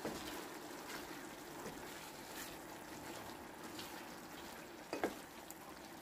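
Chicken and tomato in a wet tomato-paste sauce sizzling and simmering quietly in a frying pan as it is stirred with a wooden spatula; two light knocks of the spatula on the pan about five seconds in.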